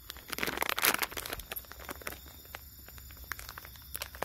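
Crinkling and rustling of plastic packaging or a plastic bag being handled, with scattered sharp clicks. It is densest and loudest in the first second.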